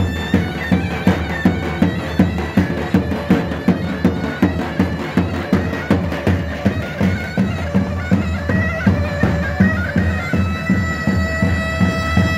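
Zurna playing a halay dance tune over a steady davul drum beat. Near the end the zurna holds one long note.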